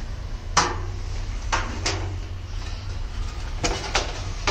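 Knocks and scrapes of a Panasonic TH-P50XT50D plasma TV's casing being handled and turned round, about five in all, over a steady low hum.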